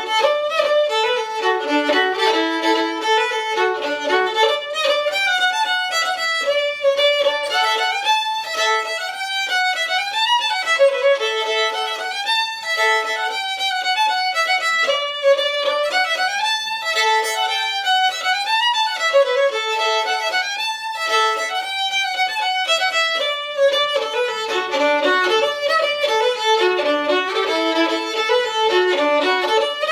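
Solo fiddle playing an old-time fiddle tune: a steady stream of quick bowed notes.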